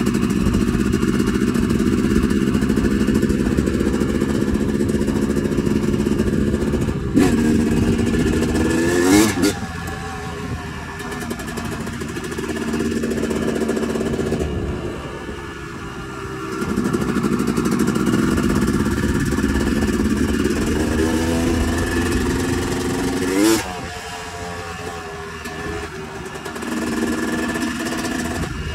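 Yamaha YZ250 single-cylinder two-stroke dirt bike engine under way, the rider working the throttle. It revs up sharply with a rising pitch twice, about a third of the way in and again near the end, and runs softer and lower between the pulls.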